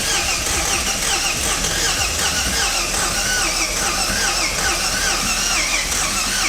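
Ford AU Falcon's turbo 4.0-litre Intech inline-six being cranked on the starter motor without catching. A steady mechanical churn with a repeating rising and falling whine about twice a second. The engine is damaged after ingesting a kebab and sauce.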